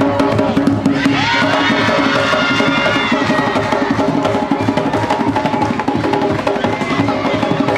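Traditional drums beaten by hand in a fast, dense rhythm, with sharp wood-block-like clicks, for a dance performance.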